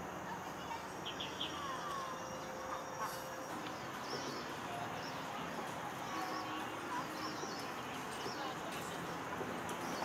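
Steady outdoor background noise with faint, scattered bird chirps and short whistled notes.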